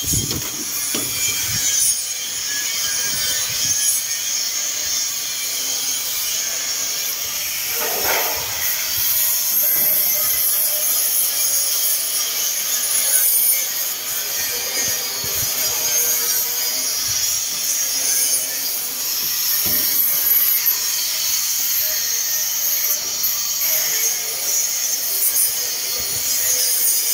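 Compressed-air paint spray gun spraying with a steady hiss of air and paint.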